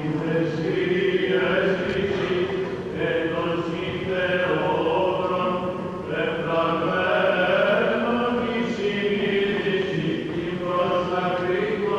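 Byzantine liturgical chant sung unaccompanied, a melody moving phrase by phrase over a steady held low drone.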